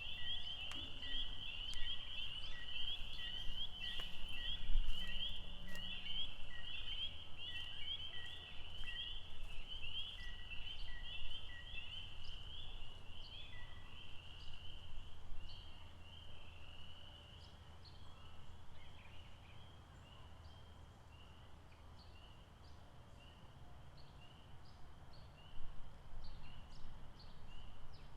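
A frog chorus at a lake: a dense mass of short, high rising chirps, with a steady series of lower notes for the first half, over a low steady rumble. The chorus grows quieter about halfway through.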